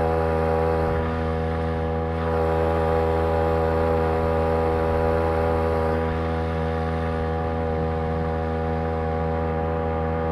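Homemade outboard motor powered by a Champion T516 trimmer's two-stroke engine, running at a steady speed with an unchanging pitched drone.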